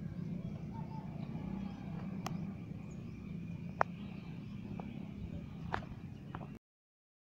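Outdoor ambience: a steady low rumble with a faint high steady tone over it and a handful of sharp clicks, cutting off abruptly about six and a half seconds in.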